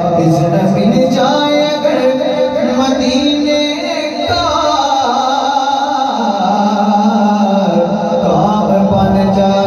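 A Punjabi naat sung by a male voice in long, drawn-out melodic lines over a steady drone.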